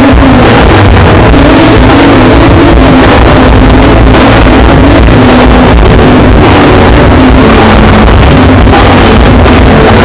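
A live band, a male singer with a drum kit, playing a song through a loud PA. The phone recording is overloaded, so the music comes through heavily distorted.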